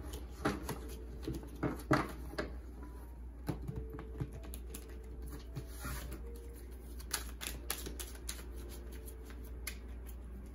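A deck of tarot cards being shuffled and handled on a table: irregular soft clicks and slaps of the cards, over a steady low hum.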